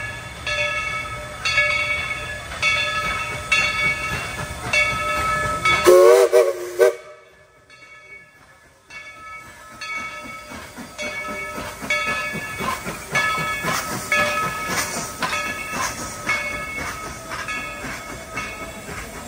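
Steam locomotive's bell ringing steadily, struck about twice a second, with a short wavering steam-whistle blast about six seconds in; the sound drops away for a couple of seconds, then the bell rings on.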